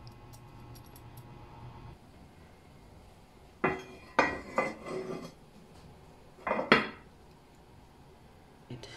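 Heavy enamelled cast-iron lid clattering as it is fitted onto its oval casserole pot: a cluster of sharp clanks a little under four seconds in, then a louder double clank near seven seconds as the lid settles.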